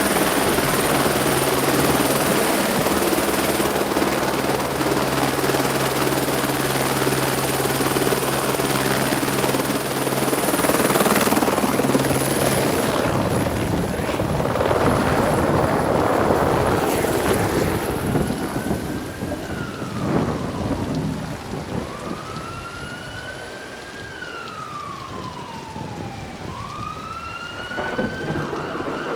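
Layered sound effects: a helicopter's steady engine and rotor noise for about the first twelve seconds, then loud thunder-like rumbling with a few sharp cracks, then from about twenty seconds in an emergency siren wailing slowly up and down over a steady rain hiss.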